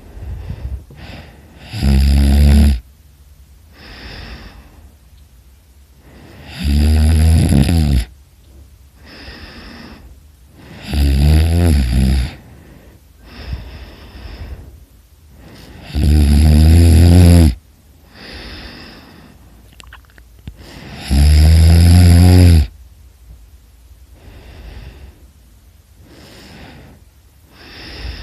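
A sleeping person snoring loudly. There are five loud snores about five seconds apart, each lasting a second or so, with a softer breath between them.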